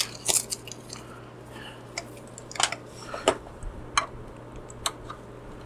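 Scattered light clicks and taps of cables being handled and plugged into the miner's Ethernet and barrel-jack power ports, about seven in all, over a steady low hum.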